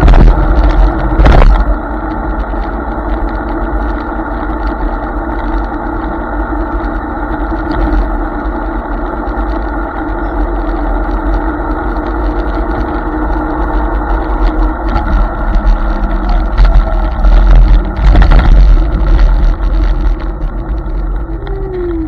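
Hiboy S2 Pro electric scooter riding along, its hub motor whining steadily over heavy wind and road rumble. There are loud bumps from the deck and wheels about a second in and again about eighteen seconds in, and near the end the motor whine falls in pitch as the scooter slows.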